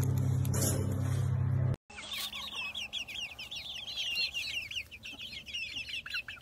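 A loud, steady low drone cuts off a little under two seconds in. Then a group of hens clucks and chirps with many quick, high, repeated calls.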